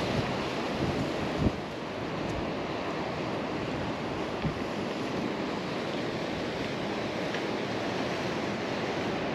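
Strong wind buffeting the microphone, a steady rushing noise, with a brief thump about a second and a half in.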